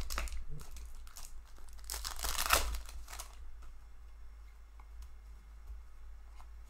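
A foil hockey-card pack wrapper being torn open and crumpled, a dense crinkling tear about two seconds in that lasts just over a second, with a few shorter crinkles before it and faint rustling of cards afterwards.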